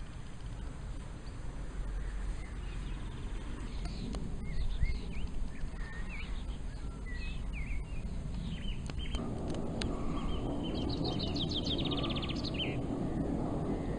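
Small songbirds calling with short scattered chirps, then a rapid trill lasting about two seconds near the end, over a steady low rumble that thickens about nine seconds in.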